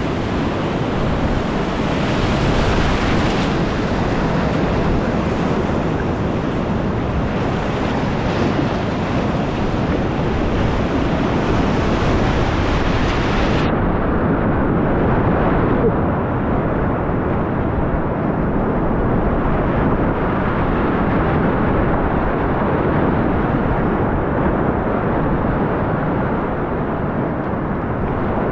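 Loud, steady rush of whitewater rapids with wind buffeting the microphone. About halfway through, the sound turns abruptly duller as its upper hiss drops away.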